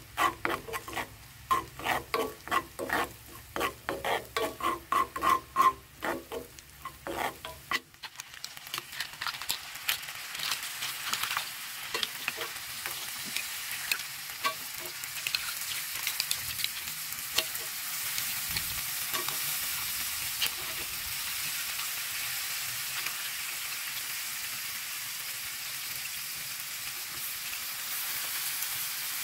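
Butter and garlic sizzling in a cast iron pan under mussels and shrimp. For the first eight seconds it is stirred in quick strokes, about two or three a second, and after that the sizzle goes on steadily.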